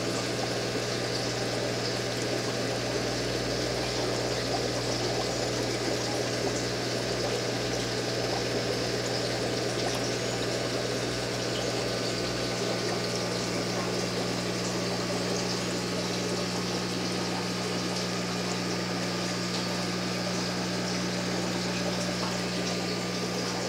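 Aquarium pump running with a steady low hum, over an even hiss of moving water.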